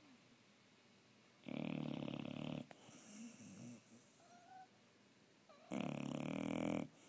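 Pit bull dog snoring in its sleep: two loud snores, each a little over a second long and about four seconds apart, with softer breathing sounds between them.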